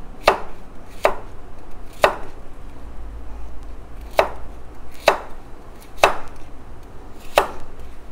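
Kitchen knife chopping skin-on pumpkin into large chunks on a plastic cutting board. There are seven sharp chops, roughly a second apart, with a two-second pause after the third.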